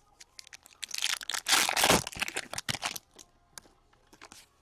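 Plastic wrapper of an O-Pee-Chee hockey card pack crinkling and tearing as it is handled, a dense crackle for about two seconds starting a second in, with light clicks of cards being handled around it.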